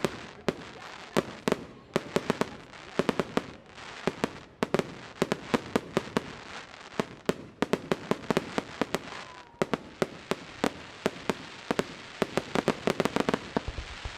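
Fireworks display: a rapid, irregular run of sharp bangs from bursting shells, often several a second in clusters, over a constant crackling haze.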